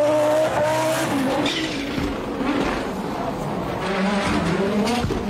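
Audi quattro Group B rally car's turbocharged five-cylinder engine revving hard at speed. Its pitch climbs, drops off about a second and a half in, and builds again near the end.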